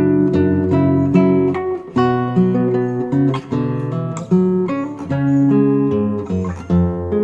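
Background music: plucked and strummed acoustic guitar playing chords, with a new chord struck about every half second to second.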